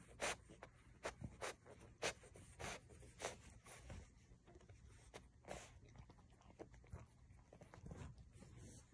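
French bulldog snuffling with its nose pushed into a blanket: short breathy sniffs about every half second for the first four seconds, then fewer and further apart.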